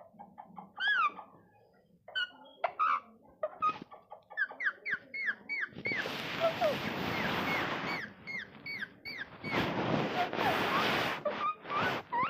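Indian ringneck parrot calling in a rapid series of short chirps and squawks that sweep up and down in pitch. About six and about ten seconds in come two stretches of loud, harsh noise lasting a second or two each.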